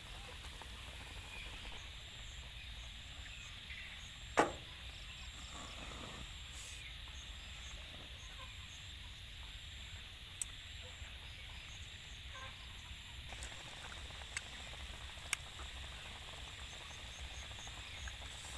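Quiet rural outdoor background with a steady low hiss, broken by a few small sharp clicks and one louder knock about four seconds in.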